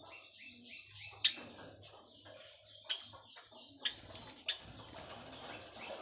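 White Java sparrows calling in a cage: quick runs of short high chirps with sharp clicks between them.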